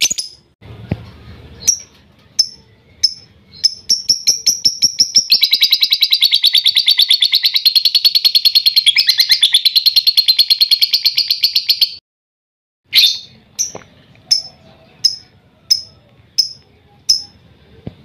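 Lovebird calling: sharp single chirps about every two-thirds of a second. From about four seconds in comes a long, rapid chattering trill of some eight seconds, the 'ngekek' song. It cuts off suddenly, and after a short pause the single chirps resume.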